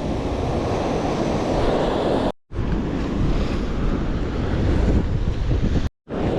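Ocean surf washing with wind buffeting the microphone, a steady rushing noise that cuts out completely for a moment twice.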